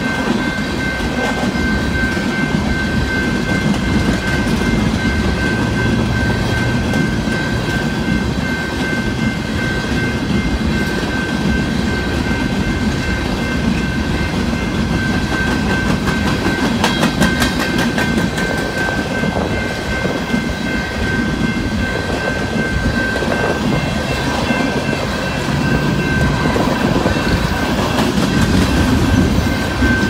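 Empty coal train cars rolling past, a steady rumble of steel wheels on rail with clicks over the rail joints and a quick run of clicks about halfway through. A steady high tone sounds over it throughout.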